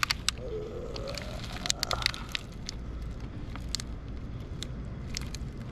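Metal sockets clicking and clinking as they are handled and set back into a socket set case, several sharp clicks scattered through, over a steady low hum.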